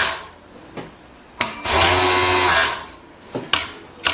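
Fingtex MT-900D-4UTD automatic overlock machine sewing a short burst of about a second at a steady speed. A sharp click comes just before the run, and a few sharp mechanical clicks follow it.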